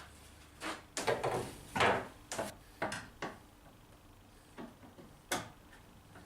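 Irregular knocks and clatters, about eight in all and unevenly spaced, the loudest around two seconds in and again near the end, typical of things being handled and set down in a workshop.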